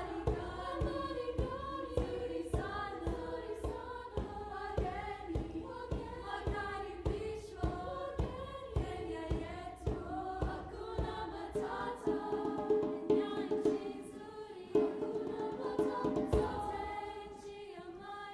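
High school women's chorus singing in three treble parts (SSA), over a steady percussive beat. In the second half the voices hold long sustained notes.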